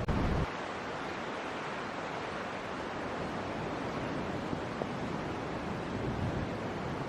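Steady outdoor rushing noise, with a low rumble that cuts off abruptly about half a second in.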